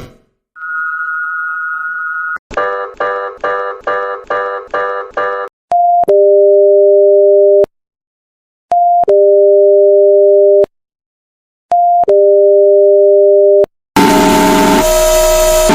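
A sequence of electronic alert tones. A steady high beep is followed by seven quick chime-like tones, then three times a short higher beep leading into a long two-note tone, each about three seconds apart. Near the end a loud, harsh alarm tone starts, switching back and forth between pitches.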